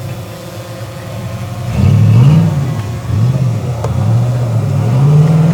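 V8 Jeep engine running at low revs, then from about two seconds in revved up and down several times, the engine note rising and falling with each swell.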